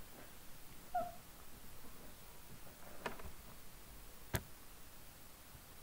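Quiet room tone with a brief high squeak about a second in, followed by a few faint clicks, the sharpest about four seconds in.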